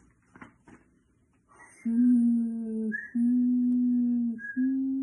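A woman's voice imitating the howling wind of a snowstorm, three long, steady 'hoooo woooo' hoots from about two seconds in. Before them, the soft rustle of a picture-book page being turned.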